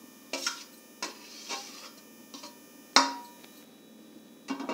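Scattered clinks and scrapes of kitchen utensils against a metal kadhai as grated carrot is added to the milk. The loudest is a sharp knock with a short ring about three seconds in.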